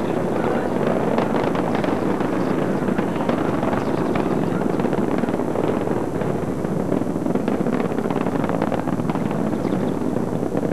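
Space Shuttle Challenger's solid rocket boosters and main engines in ascent: a steady, loud rumble full of crackling.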